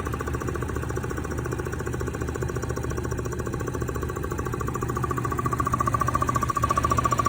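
Engine running with a fast, repetitive thumping that is still there after its chain guides were replaced. It gets louder about five seconds in.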